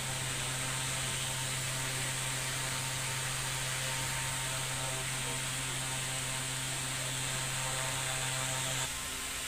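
Steady low electrical hum over a constant hiss; the hum cuts off abruptly near the end.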